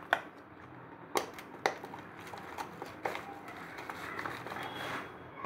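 Light clicks and taps from a small plastic spice spoon and container being handled over a bowl, three sharper ones in the first two seconds, with faint rustling in between.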